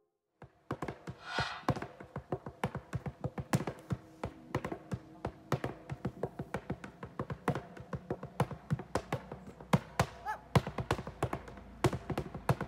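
Flamenco-style dance footwork: shoes striking a board in rapid, irregular taps and heel stamps, several to the second.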